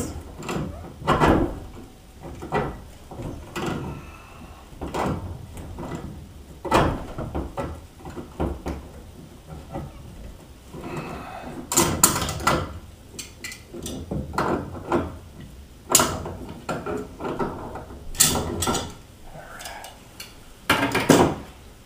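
Channel-lock pliers being handled on copper pipe and brass fittings: irregular metal clicks, knocks and scrapes, with a few sharper knocks in the second half.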